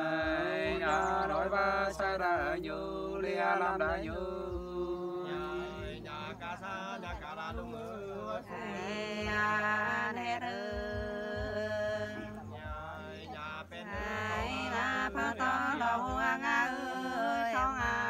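Unaccompanied Nùng sli folk singing: voices holding long, slowly wavering notes in a chant-like melody.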